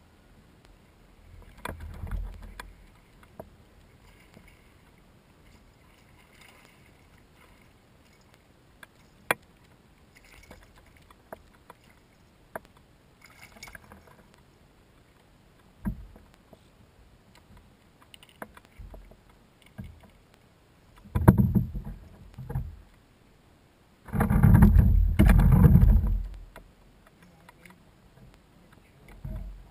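Plastic sit-on-top kayak being fished from and paddled: mostly quiet, with scattered small clicks and knocks of gear against the hull. In the second half come two louder bursts of paddle strokes and knocking on the hull, the second lasting about two seconds.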